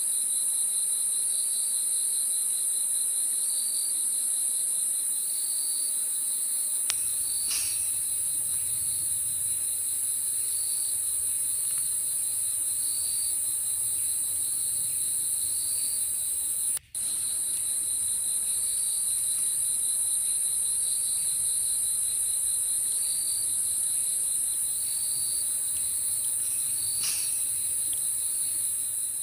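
Night insect chorus: a steady high-pitched drone of insects, with a cricket trilling in short bursts about every second and a half. The sound cuts out for an instant about halfway through, then carries on.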